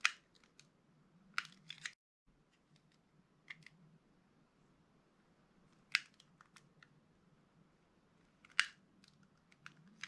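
A blade cutting into a bar of soft pink soap: sharp crisp cuts a couple of seconds apart, each followed by small crackling ticks as the soap gives way.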